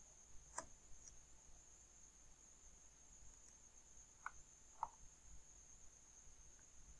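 Near silence with a faint steady high whine, broken by a few soft computer mouse clicks: one about half a second in and two in quick succession past the middle.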